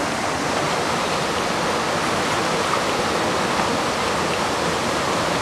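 Steady rush of river rapids: white water running past and around inflatable kayaks.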